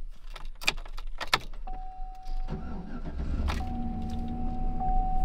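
A few sharp clicks, then a GMC pickup truck's engine starting about two and a half seconds in and settling into a steady idle, with a thin steady whining tone over the engine.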